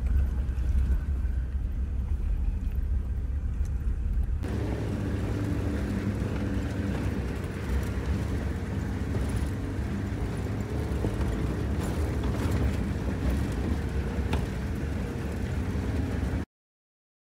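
A motor vehicle driving, with a steady low engine rumble. About four seconds in it changes to a fuller engine drone, and it cuts off abruptly near the end.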